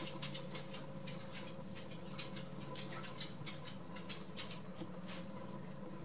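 Faint, irregular small clicks and ticks over a steady low hum.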